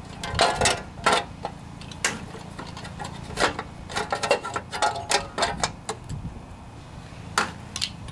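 Irregular clicks and knocks of a plastic engine cover on a lawnmower engine being pressed and worked into place by hand, with its breather hose.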